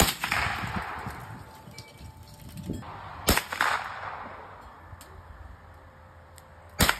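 Remington Nylon 66 semi-automatic .22 LR rifle firing three single shots, roughly three and a half seconds apart: one at the start, one about three seconds in and one near the end. Each sharp crack trails off over about a second.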